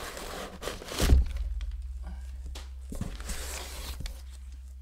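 Brown kraft packing paper rustling and crinkling as it is handled close to the microphone, with one dull thump about a second in.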